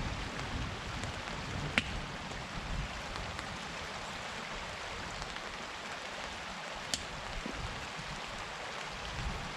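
Steady rain falling, with two sharp drip ticks, one about two seconds in and one about seven seconds in.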